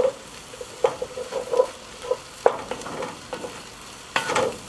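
Root vegetables and tomato paste sizzling in a hot cast-iron Dutch oven while a wooden spoon stirs them. The spoon scrapes across the pot in a few strokes, one every second or so.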